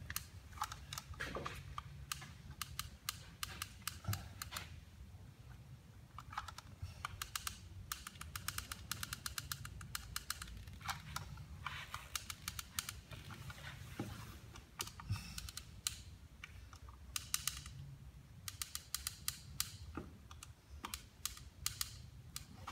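Caulking gun applying silicone sealant, its trigger and plunger rod giving off irregular runs of light clicks as it is squeezed again and again. A faint low hum sits underneath.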